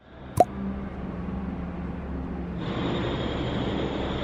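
City street ambience: a steady low hum of a running vehicle engine, with one short sharp click about half a second in.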